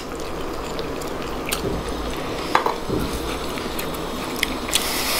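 Eating by hand at the table: wet stirring and squishing of millet dhido and chicken curry, with scattered light clicks of plates, over a steady background hiss.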